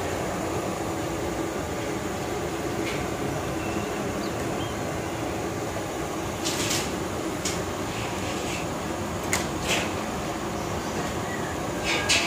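Steady roar of a gas burner under a large karahi wok, with a few short crinkles and clicks from plastic cooking-fat pouches being squeezed out into the pan.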